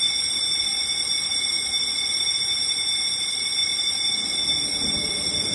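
Fire alarm ringing continuously: a steady, unbroken high-pitched ring. A low rumble starts to rise near the end.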